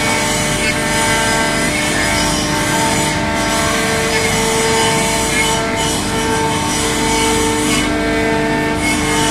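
CNC router cutting wood: the spindle runs steadily with a few held tones over the rough, even noise of the bit cutting.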